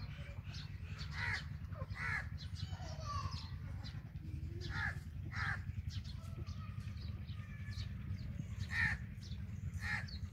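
Crows cawing, about six short calls coming in pairs, over a steady low rumble.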